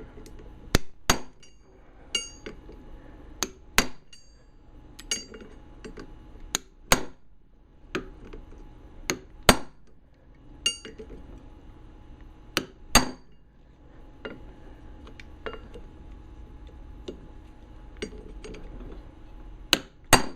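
Sharp metal-on-metal hammer taps, about twenty of them, unevenly spaced roughly a second apart, some with a short bright ring: a steel retaining ring being tapped down to seat it in a Snap-on ratchet head.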